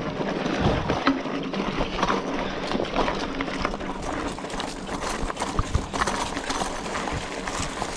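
Scott Spark 960 full-suspension mountain bike rolling fast over loose stones and dry leaves: tyres crunching on the gravel, with many irregular knocks and rattles from the bike as it hits the rocks.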